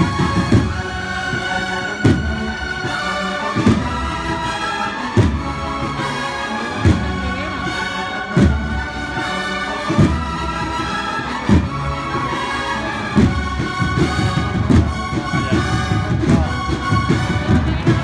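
A cornetas y tambores band of cornets and drums playing a slow processional march, the cornets carrying the melody over rolling snare drums, with a heavy bass drum stroke about every one and a half seconds.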